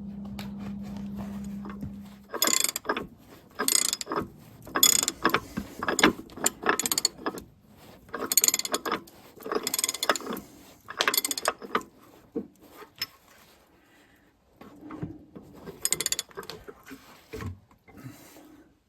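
Metal hand tools clanking and rattling irregularly as they are handled and gathered up. A steady hum stops about two seconds in.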